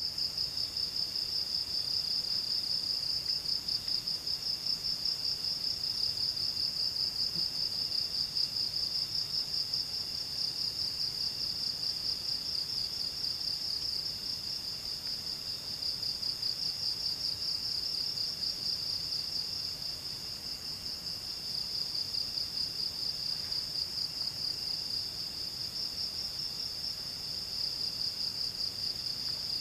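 Chorus of forest insects: a steady high-pitched trill with a fast pulsing rhythm, with a fainter second insect trill starting and stopping every few seconds beneath it.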